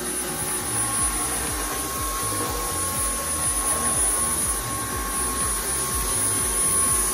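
Dyson Cyclone V10 cordless stick vacuum running steadily as its floor head is pushed over wooden floorboards: a loud rush of air with a thin, high whine, and a lower whine joining about a second in.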